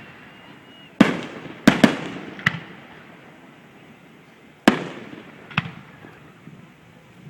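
Fireworks display shells bursting in the sky: a quick run of four sharp bangs, then after a pause two more, each trailing off in echo.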